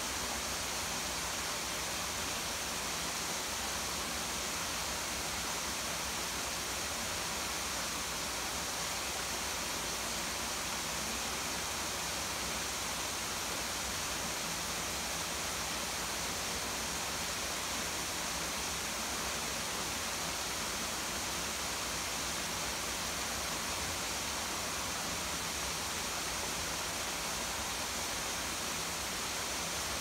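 Small garden waterfall and falling rain making a steady, even rushing hiss that never breaks.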